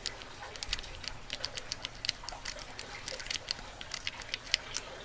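A snake rake being raked through the pins of a lock: a quick, irregular run of faint little metallic clicks and scrapes as the pins are bounced toward a set.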